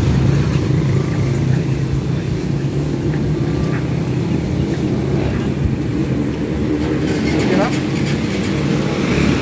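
A vehicle engine idling: a steady low rumble, with voices talking faintly over it.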